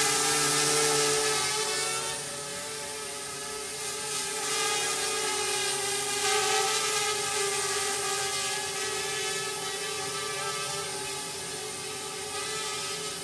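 Parrot Bebop quadcopter's propellers and motors whining in flight, a steady pitch with harmonics. It is louder for the first two seconds, then a little quieter, with the level drifting up and down.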